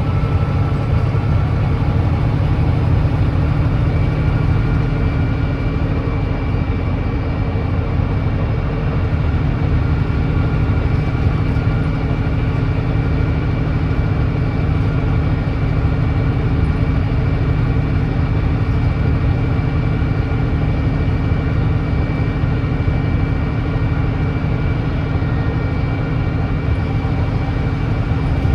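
Volvo D9B 9.3-litre diesel engine of a Volvo B9TL double-decker bus running steadily, heard from on board as an even drone with a faint high whine over it and no gear change.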